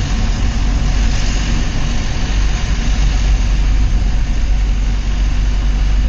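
Vehicle engine idling steadily with a low, even hum.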